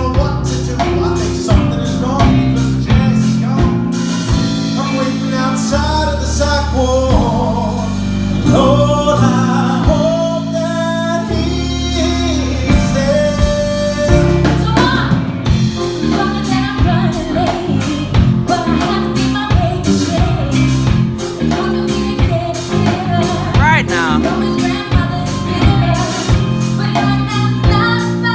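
A live band playing a gospel-tinged musical-theatre song, with drums and bass under a singing voice.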